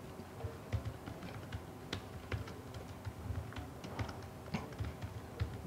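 Typing on a computer keyboard: irregular, quick, light key clicks as a line of code is entered.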